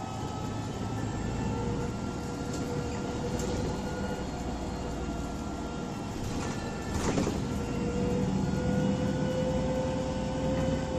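Interior of a moving bus: a steady low rumble of engine and road noise with a steady whine, which rises slightly in pitch about eight seconds in. A brief noisy hiss or rattle stands out about seven seconds in.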